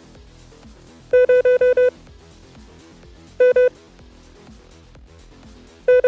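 Morse code (CW) tone keyed in short, even dits of one mid-pitched beep: a quick run of five, then two, then three beginning near the end. Quiet background music plays underneath.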